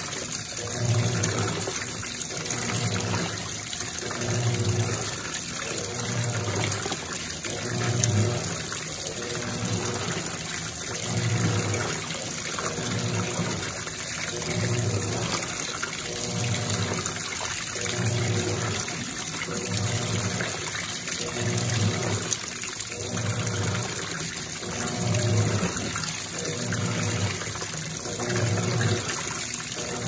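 Electrolux LT12F top-loading washing machine agitating during its rinse cycle: a low motor hum pulses about once a second as the agitator swings back and forth, under a steady splash of recirculated water pouring onto the load.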